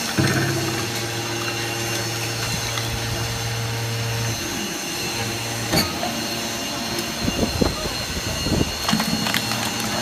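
Hydraulic baler for aluminum cans running: a steady low hum from its motor and hydraulic pump that drops out briefly about four seconds in, a sharp clack near six seconds, then a run of irregular knocks and crunches toward the end as the compressed bale of cans is pushed out of the chamber.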